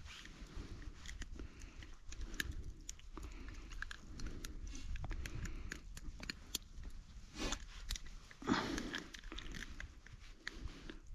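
Quiet crunching and crackling with scattered small clicks, from a gill net and its catch being handled on ice and snow, with a couple of louder rustles about two thirds of the way through.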